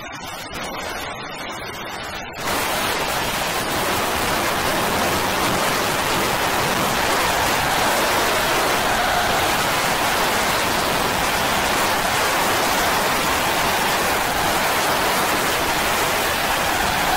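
A dense, steady hiss of noise like heavy rain comes in abruptly about two seconds in and holds evenly, with faint tones showing through it later; it is the noise layer of an effects-processed synth piece.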